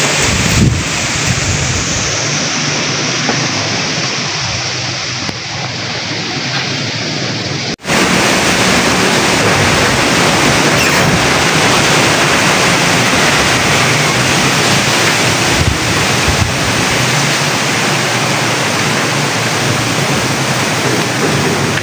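Typhoon wind rushing through the trees as a steady, loud noise. The sound cuts out for an instant about eight seconds in.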